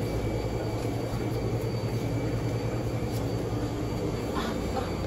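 Steady low mechanical hum and rumble of background machinery among rows of running aquarium tanks.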